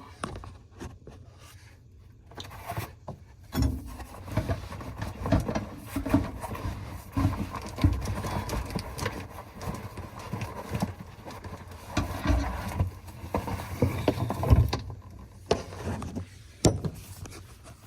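Irregular metal clunks, knocks and scraping from a long screwdriver levering an under-sink garbage disposal's mounting ring, as the disposal is twisted and unlocked from its mount. The loudest knocks come about three quarters of the way through and again near the end.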